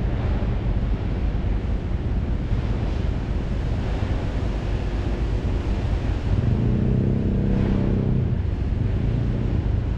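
Wind buffeting the microphone over open water, with a low engine drone underneath that swells for a couple of seconds about seven seconds in.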